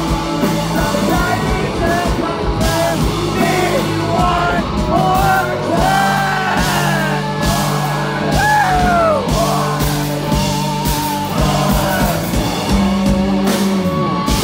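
Live rock band playing loud, with electric guitars, drums and yelling vocals, heard from close to the stage.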